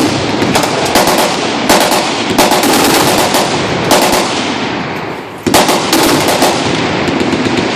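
Several machine guns firing fully automatic at once, a dense, continuous rattle of overlapping shots. It dips briefly just past five seconds, then comes back loud with a fresh burst.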